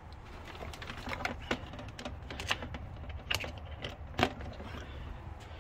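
A power cable and plug being handled at a wall-mounted power strip: a scattered series of light plastic clicks and knocks, the loudest about four seconds in as the plug is pushed into the socket.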